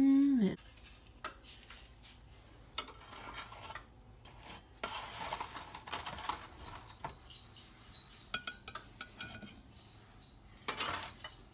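A metal spatula scraping under baked treats on a metal baking sheet, with scattered clinks of metal on metal as they are lifted off. It opens with a brief, loud pitched voice sound that rises and falls.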